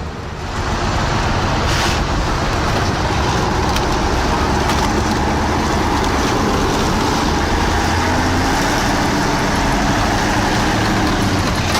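Heavy vehicle engine running steadily, a continuous loud rumble and noise with no breaks.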